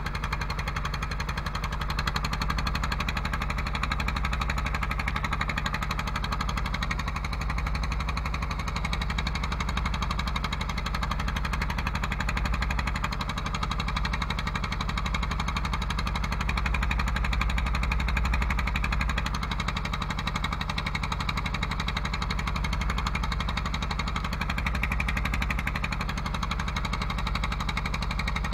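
Wooden fishing boat's engine running steadily as the boat is underway, an even, rapid chugging with no change in speed.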